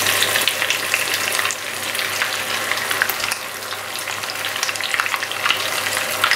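Kakiage vegetable fritter deep-frying in hot oil in a pot: a steady sizzle with many rapid crackling pops.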